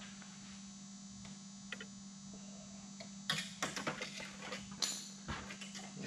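Handling noise of a steel wire clip being worked against the taut fabric covering of an aircraft wing: a cluster of clicks and rustles starting about three seconds in, over a steady electrical hum.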